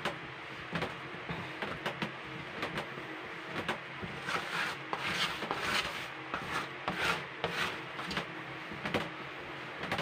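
Hands kneading and pressing a stiff lump of marshmallow fondant on a powdered-sugar-dusted tabletop, with a plastic scraper working the dough: irregular rubbing and scraping, with a soft knock now and then.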